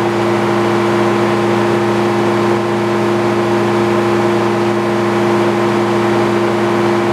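Engine powering a Frick sawmill, running steadily at an even, unchanging speed.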